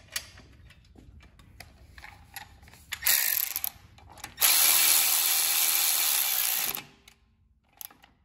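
Cordless electric ratchet driving a bolt in: a short burst about three seconds in, then a steady run of about two seconds that stops suddenly. A few faint clicks come before it.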